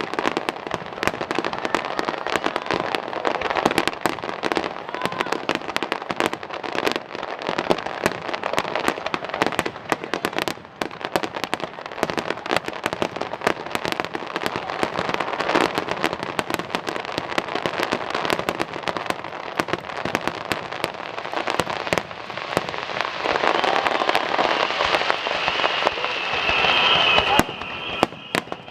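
Aerial fireworks crackling in a dense, rapid stream of pops. The crackle builds louder over the last few seconds, then drops away suddenly shortly before the end, leaving a high steady whine.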